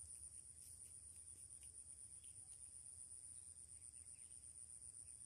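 Faint, steady high-pitched insect trill over near silence.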